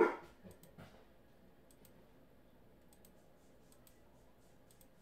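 Faint, scattered computer mouse clicks, a few in quick pairs like double-clicks, after a short breath-like vocal sound at the very start.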